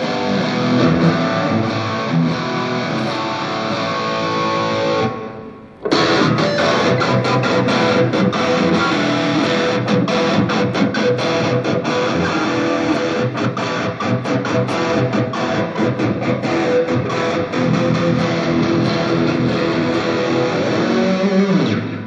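Stratocaster-style electric guitar played through an amplifier and effects pedals in a sound check. The playing breaks off about five seconds in, picks up again a second later and stops near the end.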